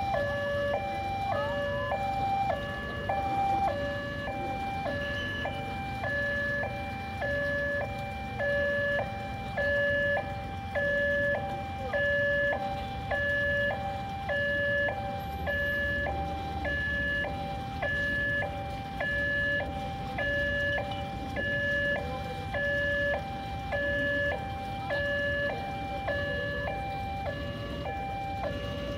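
Railway level-crossing warning alarm sounding a steady two-tone signal, alternating between a higher and a lower tone about once a second while the barriers are down: a train is approaching.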